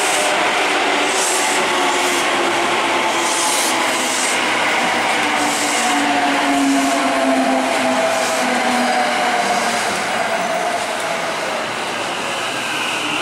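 Electric commuter train running alongside a platform and slowing. The whine of its electric motors falls gradually in pitch over steady wheel-and-rail rumble, with repeated hissy surges, and the overall sound eases off slightly near the end.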